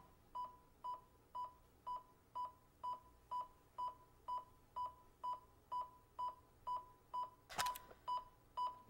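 A small electronic device beeping with short, even tones about twice a second. A brief noisy whoosh comes about three-quarters of the way through.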